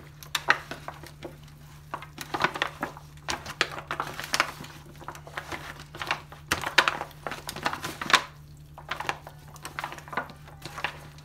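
Hands mixing raw chicken drumsticks with seasoning in a disposable aluminium foil pan: irregular crinkling and rattling of the thin foil as the pieces are turned and pressed, in clusters of quick crackles.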